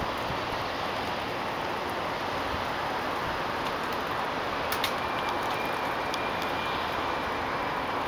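Steady, even rush of distant city traffic. A single sharp click comes about five seconds in, and a faint high steady tone starts around then.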